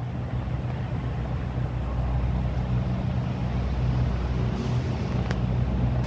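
An engine running steadily, a low droning hum.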